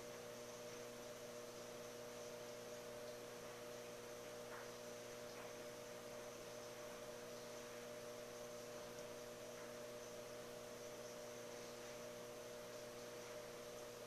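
Faint, steady electrical hum of running aquarium equipment, over a soft even hiss.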